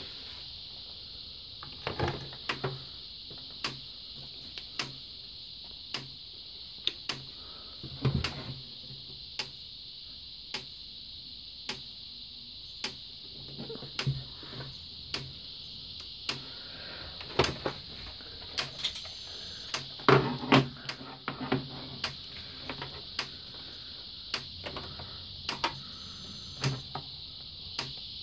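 Kencove K-6 electric fence charger ticking about once a second as it fires its output pulses, the sign that the repaired unit is working. Extra handling knocks fall between the ticks, with a steady high-pitched hiss underneath.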